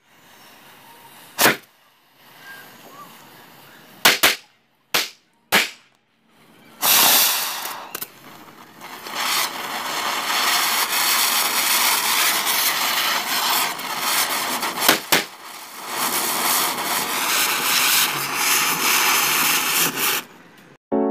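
Small Diwali firecrackers going off one at a time with sharp bangs: several in the first six seconds and another near fifteen seconds. From about seven seconds, firework fountains and ground spinners hiss steadily as they spray sparks.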